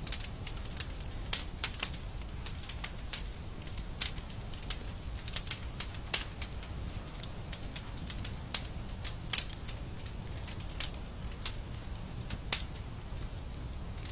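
Fireplace fire crackling, with irregular sharp pops, several a second and now and then a louder snap, over a low steady rumble of the flames.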